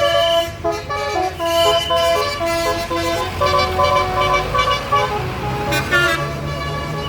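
A bus's telolet "basuri" multi-tone air horn playing a quick melody of short stepping notes, over the low running of the bus engine.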